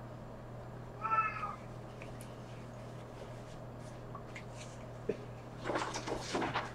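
A house cat meowing once, briefly, about a second in. A short rustling noise follows near the end.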